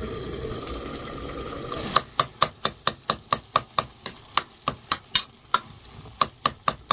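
A steady hiss for about two seconds, then a fast, irregular run of sharp chopping taps, about four a second, as boiled pumpkin leaves for green saag are cut fine.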